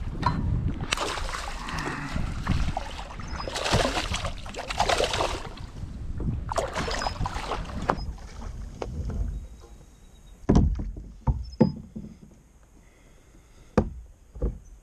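Water splashing and sloshing in irregular bursts around a kayak while a small bass is fought and brought in at the surface. It then goes quieter, with several sharp knocks about two-thirds of the way through and two more near the end.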